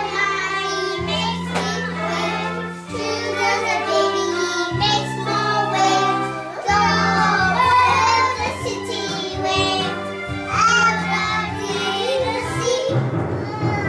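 Music: a child singing a melody over held accompaniment chords that change every second or two.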